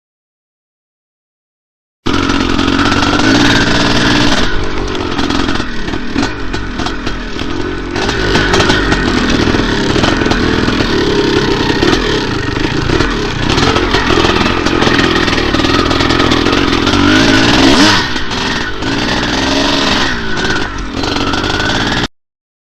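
Dirt bike engine running under riding, its pitch rising and falling with the throttle. It comes in abruptly about two seconds in, is loudest a little before the end, and cuts off suddenly.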